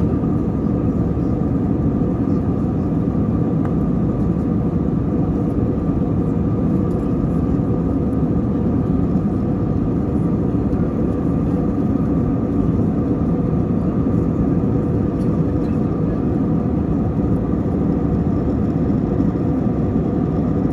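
Steady cabin drone inside an Airbus A321: a constant low rumble of engines and airflow with a faint steady hum above it, unchanging throughout.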